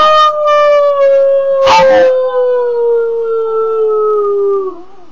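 Pug howling: one long, drawn-out howl that slides slowly down in pitch and fades out near the end, with a brief noisy break nearly two seconds in.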